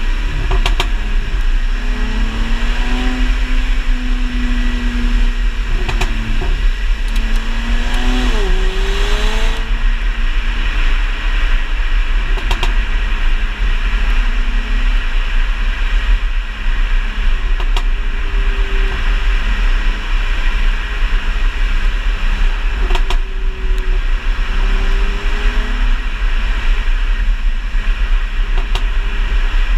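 Mercedes-Benz C350 coupe's V6 engine and exhaust while driving, the engine pitch holding steady, then rising and falling. Scattered sharp pops and crackles come from the exhaust on lift-off, produced by a Kleemann ECU tune still in development, which the owner says arrive two to three seconds after letting off the throttle.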